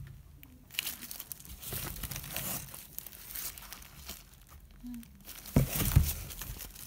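Thin plastic gloves crinkling and stacks of paperboard boxes rustling and sliding against each other as they are handled. A couple of louder knocks come near the end as a stack is set down.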